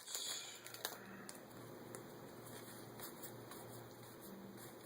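Faint handling of Yu-Gi-Oh trading cards: a brief rustle at the start and a click just under a second in, then soft, quiet handling noise.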